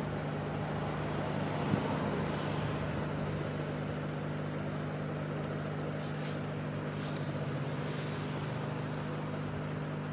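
Handheld hot air gun running steadily, its fan blowing with a constant hum and airy hiss as it heats a thinner-soaked chip on a motherboard.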